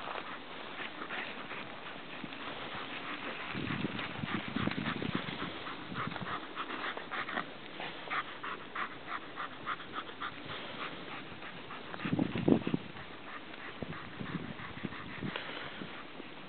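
German Shepherd dog running close by: a quick rhythmic patter of footfalls and panting, a few beats a second, with louder low bursts about four seconds in and again near twelve seconds.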